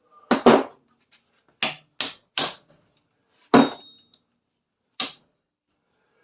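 Hammer blows on a steel punch, driving a seized bolt out of a Triumph Spitfire's rear trailing arm: about seven sharp metallic strikes at irregular intervals, a few leaving a short high ring.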